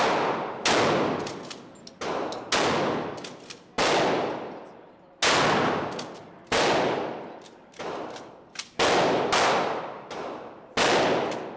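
Gunshots at a shooting range: about nine loud shots at uneven intervals, each echoing and fading for a second or so before the next.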